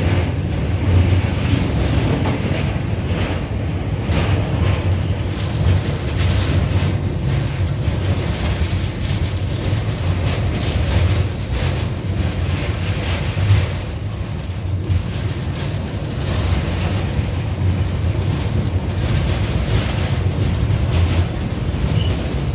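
Passenger train running along the track: a steady low rumble with noise of the wheels and coach over it, heard from inside the carriage.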